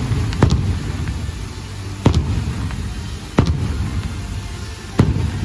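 Fireworks shells bursting: four sharp bangs, one every second and a half or so, over a continuous low rumble.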